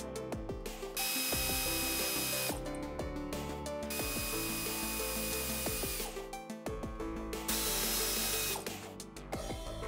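Power ratchet running in three bursts as it backs out the water pump mounting bolts on a GM 3.1L V6, with background music.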